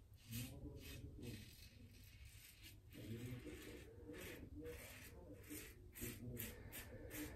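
Karve CB safety razor scraping stubble through shaving lather on the cheek: a faint run of short, irregular scraping strokes, a few each second.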